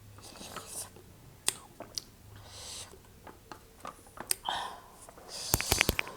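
Short hissing breaths and sniffs from someone eating very spicy noodles, their mouth burning from the chilli, with scattered eating clicks. Near the end comes a quick run of sharp clicks.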